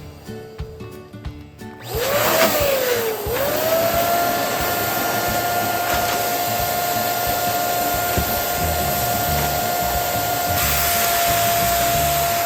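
Electric balloon pump switched on about two seconds in. Its motor tone wavers down and back up, then settles into a steady whine over a rush of air as it runs.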